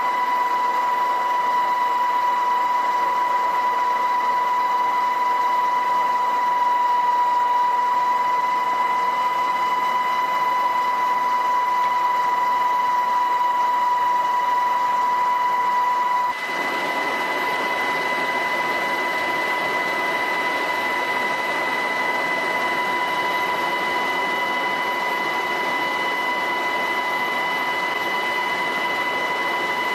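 MH-60S Seahawk helicopter running, its turbine engines and gearbox giving a steady high whine over a dense rushing noise. About halfway through the sound changes abruptly: the whine is weaker and the rush fuller.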